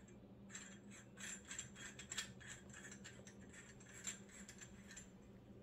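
Faint clicking and rattling of small oil catch can parts being handled and turned in the hands: a string of light clicks, the clearest about four seconds in. A faint steady low hum lies under it.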